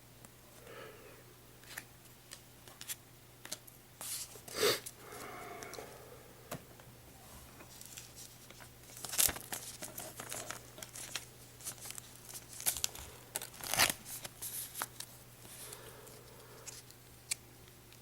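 Foil booster pack wrapper crinkling and tearing, with cards handled and shuffled through, as irregular rustles and sharp crackles; the loudest snaps come about four and a half, nine and fourteen seconds in.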